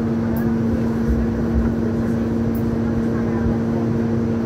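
Hong Kong Light Rail Phase III car, heard from inside the cabin: a steady electrical hum over a low, uneven rumble from the running gear.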